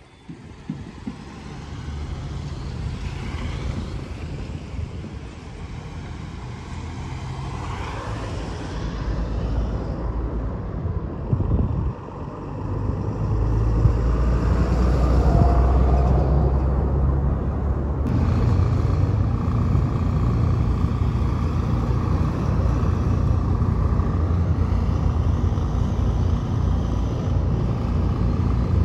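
Road traffic with city buses: a low engine drone that grows louder through the first half, dips briefly, then stays loud from about halfway on.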